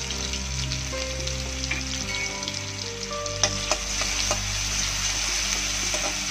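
Crushed garlic and bay leaves sizzling in hot oil in a kadhai for the tempering (phodni), a steady frying hiss. A metal ladle stirs them, with a few sharp clicks against the pan about three and a half seconds in.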